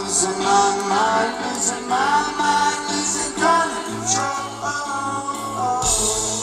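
A rock band playing live, with a voice singing a melody over the band.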